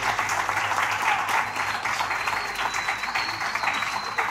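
A crowd applauding: many hands clapping in a dense, steady patter. A thin high whistle joins about a second and a half in and holds on.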